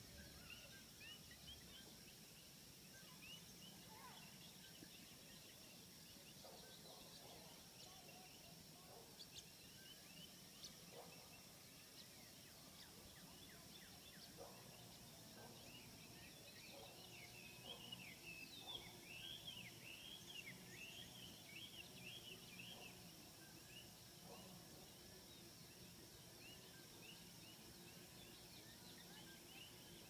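Faint chorus of wild birds chirping and calling, with a busier flurry of quick chirps a little past halfway, over a steady high-pitched hum.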